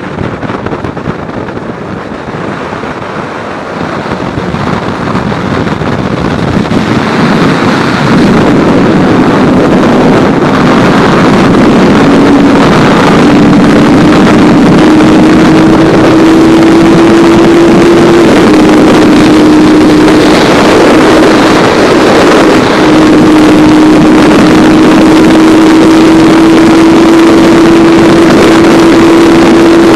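Yamaha Thundercat's 600 cc inline-four engine pulling hard at high revs, getting louder over the first several seconds. Its pitch climbs steadily, drops briefly at gear changes about 12 and 18 seconds in, then climbs again, over a heavy rush of wind on the microphone.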